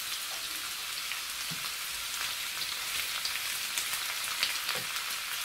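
A large batch of sliced onions sizzling steadily in hot cooking oil in a frying pan, with small crackling pops through the hiss.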